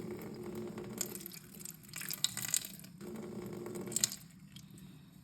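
Toy volcano kit's eruption powder fizzing and crackling as water reacts with it, in irregular bursts about a second in and again near the end.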